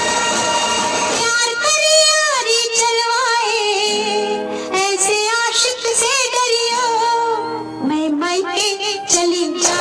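Recorded Bollywood song played loud through stage speakers: sustained instrumental chords, then from about a second in a woman's voice singing an ornamented, wavering melody over the accompaniment.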